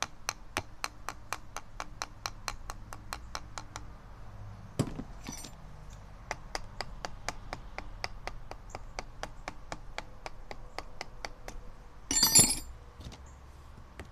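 Rapid light hammer taps on a carburetor, about five a second, to break loose a metal part stuck to its gasket, with a pause and one heavier knock about five seconds in. Near the end there is a loud metallic clatter.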